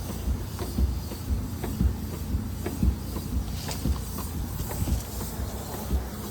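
Steam engine running with a hiss and a low beat about once a second.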